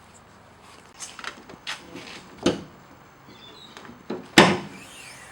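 A Ford Crown Victoria's doors and bonnet being worked by hand: a few light clicks and knocks, a sharper one about two and a half seconds in, and a loud clunk about a second before the end.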